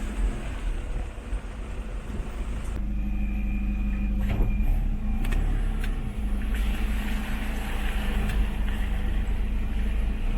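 Minibus engine running with steady low road rumble as it drives, with a few sharp knocks about four to five seconds in.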